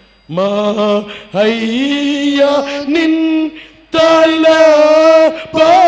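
A man singing a slow Telugu devotional song solo into a microphone. He holds long notes with a slight waver, in three drawn-out phrases broken by short pauses for breath.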